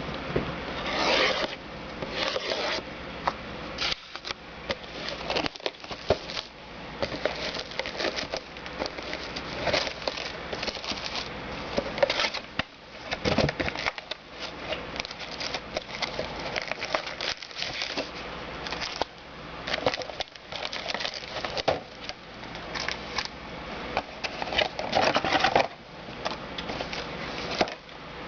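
Crinkling and rustling of card-pack wrappers and packaging being handled and torn open, with many small irregular clicks and scrapes.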